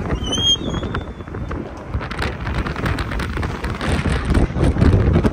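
Road noise of a moving car heard from inside, with wind buffeting the microphone in irregular gusts. A brief high squeal sounds about half a second in.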